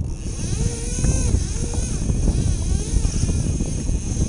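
Wind buffeting a camera microphone over choppy sea, a heavy low rumble, with a steady high-pitched whine above it.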